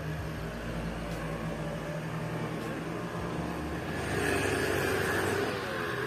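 Street ambience with motor traffic: a car passes, loudest about four to five and a half seconds in.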